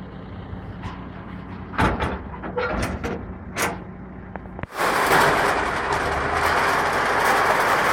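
Collection truck running, with a few knocks and clatters of bins being handled, then a sudden loud, steady rush of mechanical noise from about five seconds in.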